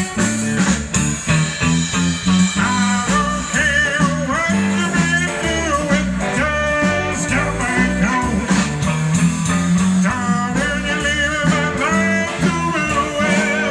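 Live rock'n'roll band playing an instrumental break, an electric guitar lead with bent, wavering notes over bass and drums.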